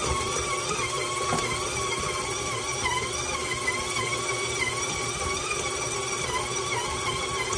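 KitchenAid stand mixer's motor running steadily with its dough hook kneading bread dough, a constant whine whose pitch wobbles slightly as the hook drags the dough round. The dough has pulled clean from the sides of the bowl.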